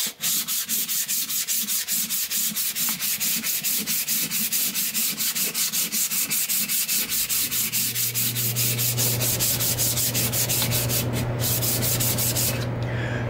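Hand sanding a hickory hammer handle with 150-grit sandpaper: quick, even back-and-forth rasping strokes, about five a second, stripping the handle's factory acrylic or polyurethane finish. The sanding pauses briefly once and stops just before the end. A low steady hum comes in about halfway through.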